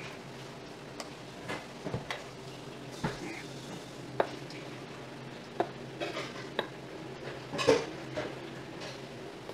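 A metal spoon stirring and scraping barley rice mixed with young radish kimchi in a stainless steel bowl, with irregular clinks of spoon on bowl. The loudest clink comes about three-quarters of the way through.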